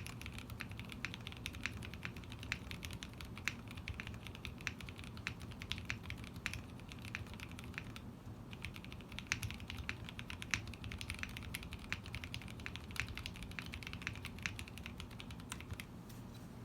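Steady fast typing on a custom 65% mechanical keyboard in an aluminium Tada68 case with lubed Gateron CAP Milky switches and lubed Cherry screw-in stabilisers, foam between PCB and plate. The typing breaks off briefly about eight seconds in, then carries on.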